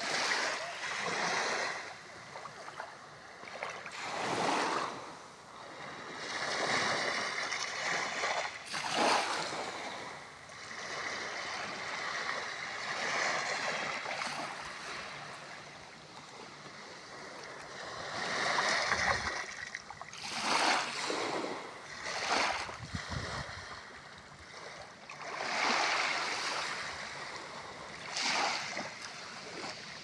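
Small waves washing up the sand and around a coral rock at the water's edge, each surge swelling and draining back every few seconds.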